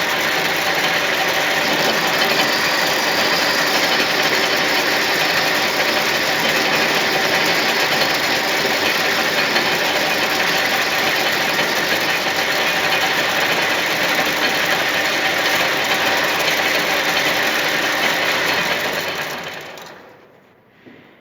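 Metal-working lathe running steadily with a constant mechanical noise. Near the end it is switched off and runs down over about a second and a half.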